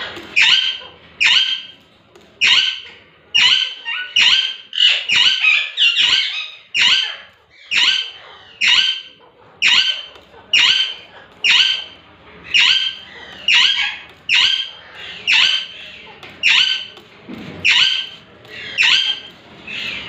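Alexandrine parakeets calling: a long run of loud, short, harsh screeches, each one brief and coming about once or twice a second, most tightly bunched a few seconds in.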